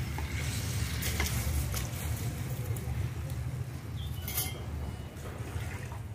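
Soaked rice and its soaking water poured from a steel bowl into a steel kadhai of masala broth, splashing and pattering, with a few light clicks of steel, over a steady low rumble.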